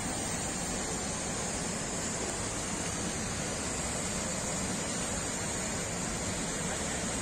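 Steady rushing noise, even throughout, with no distinct splashes or other events.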